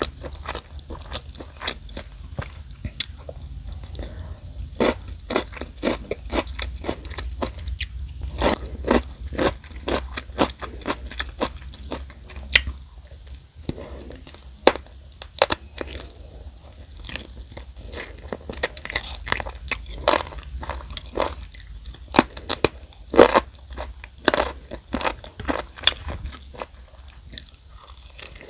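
Close-miked biting and crunching of crispy fried chicken, with irregular sharp crackles of the coating between chews, over a steady low hum.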